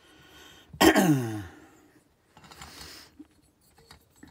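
A man clears his throat once, about a second in: a short, loud, gravelly sound that falls in pitch. A brief breathy hiss follows a little later.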